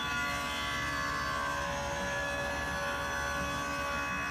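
Table saw with a dado stack running and cutting a groove through a wooden panel, a steady whine over motor noise.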